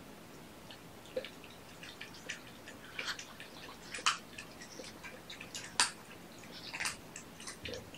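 Faint, scattered small clicks and soft rustles of hands handling a kitten and its medicine, a few sharper ticks around the middle.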